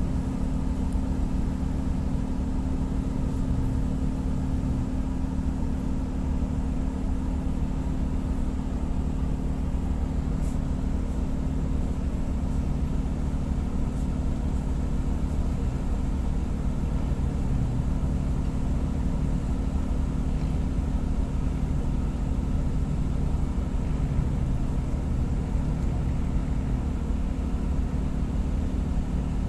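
A ship's diesel engines running steadily: a constant low rumble with a steady hum, heard on board.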